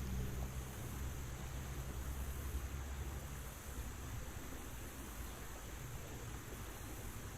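Steady rushing noise of flowing creek water, with a low rumble that fades out about halfway through.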